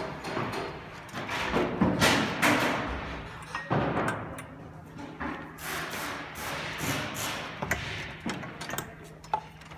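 Electrical cords being handled and bundled against a metal chair frame: irregular rustling and scraping with light knocks as the cables and plugs brush and strike the frame.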